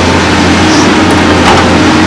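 Cat hydraulic excavator's diesel engine running steadily under load as the boom and bucket move, with one sharp clank about one and a half seconds in.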